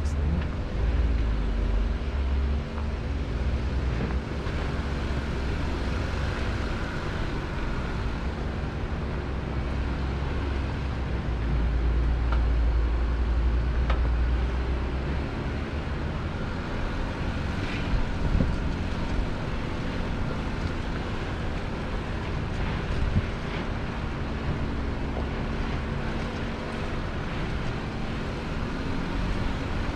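Four-wheel-drive vehicle driving slowly along an off-road trail: a steady low engine drone and rumble, with a few short knocks and rattles over the bumps.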